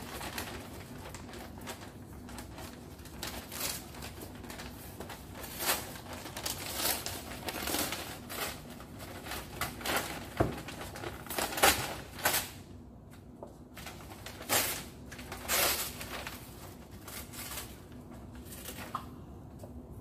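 Brown kraft wrapping paper rustling, crinkling and tearing as it is pulled open off a picture frame, in irregular bursts that are loudest about halfway through.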